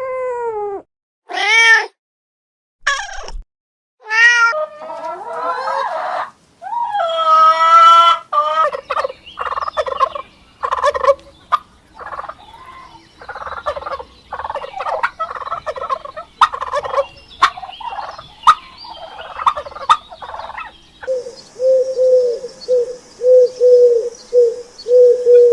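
A run of farm-animal calls: a cat meowing a few times in arched, drawn-out meows, then a long stretch of poultry calling, then pigeons cooing in short, evenly spaced coos, about two a second, for the last few seconds.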